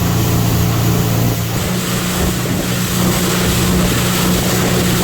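Motorboat engine running steadily at speed, with wind buffeting the microphone and water rushing past.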